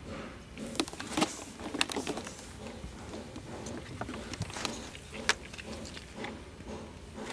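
Irregular taps and clicks of an elderly Shiba Inu's paws and claws on wooden boards as she shuffles about, sharpest around one to two seconds in and again about five seconds in.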